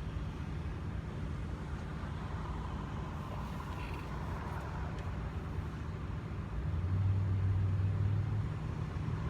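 Steady low hum of an idling vehicle engine, growing louder and fuller about seven seconds in.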